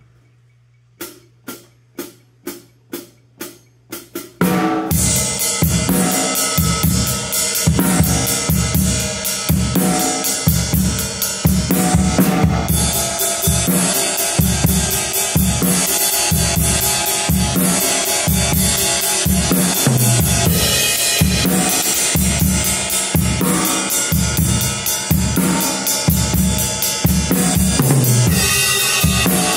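Eight quick clicks counting in, then a full acoustic drum kit playing a rock groove: bass drum, snare and ride cymbals ringing, with the ride patterns played by both the right and left hands on a Sabian AA 21-inch rock ride and a Zildjian A ping ride.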